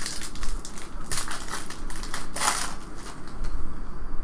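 Foil wrapper of a hockey card pack being torn open and crumpled: a run of irregular crinkling, crackling rustles.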